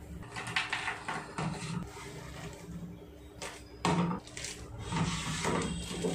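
Roasted dry fruits and nuts poured from a plastic bowl into a plastic zipper bag: scattered rattling and plastic crinkling, with a louder knock about four seconds in as the bowl is set down on the counter.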